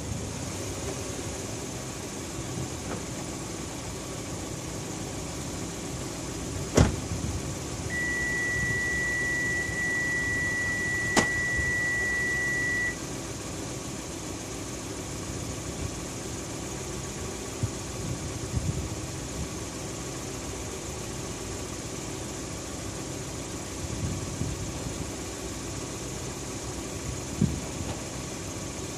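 Kia K5 (Optima) engine idling steadily. A sharp clunk comes about a quarter of the way in, then one steady high beep held for about five seconds, with a click partway through it.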